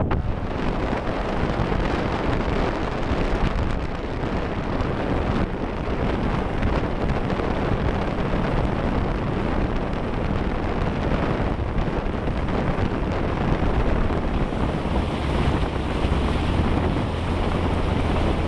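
Motorboat under way at speed: its engine runs steadily under heavy wind buffeting on the microphone and the rush of water past the hull. A low hum grows stronger near the end.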